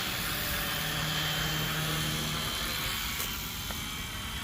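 FlyWing FW450 V3 RC helicopter in flight: a steady whir of its rotor blades with a high whine. The whine fades out about three seconds in, and the sound eases a little after that.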